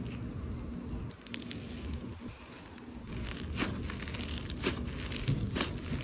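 Slime being squeezed and worked by hand, with scattered small crackling clicks that come more often in the second half.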